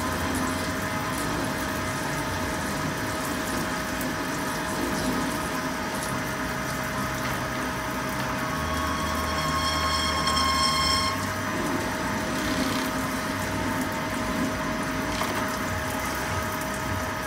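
CNC lathe turning under flood coolant: a steady splashing rush of coolant over the spinning workpiece with the machine's hum beneath. About nine seconds in a higher whine joins for roughly two seconds, then drops away.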